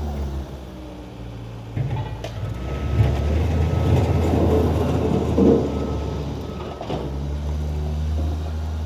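Skid steer engine running steadily; about two seconds in it grows louder and rougher for some five seconds, as if working under load, then settles back to a steady run.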